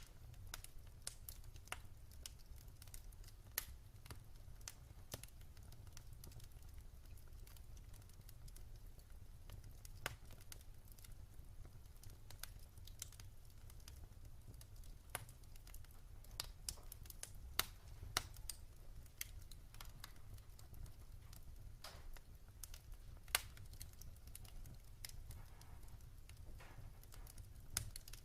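Wood fire crackling in a fireplace: irregular sharp pops and snaps, a few a second, some louder than others, over a steady low rumble.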